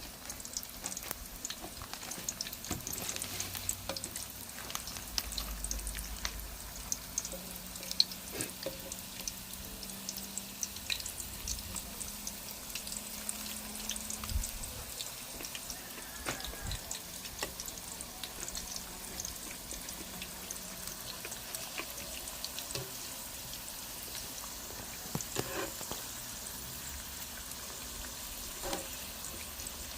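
Dried fish frying in hot oil in an electric pan: a steady sizzle with scattered sharp pops and crackles, one louder pop about eight seconds in.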